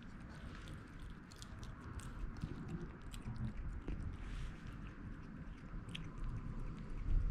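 A kitten eating wet canned cat food: soft, irregular chewing and smacking clicks.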